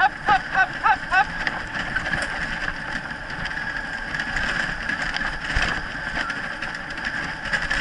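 Dryland rig pulled by a husky team rolling fast over a dirt forest trail: a steady rushing, rattling noise of wheels and wind. Within the first second and a half come a few short high-pitched calls, about three a second.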